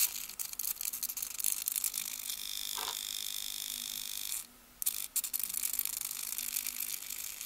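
Small blue hobby micro servo whirring and ticking as it swings the points of a handmade HO scale model railway switch, with small clicks of the push-button; a steady high whine holds for about two seconds in the middle.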